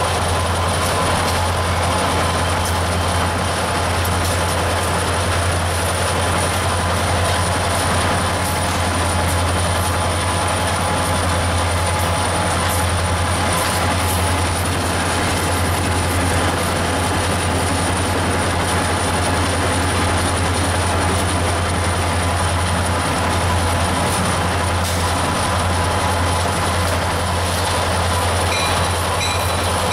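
Canadian National diesel freight locomotive running under power alongside, a steady low engine rumble with wheel and rail noise. It is heard from a car pacing the train, so road noise mixes in.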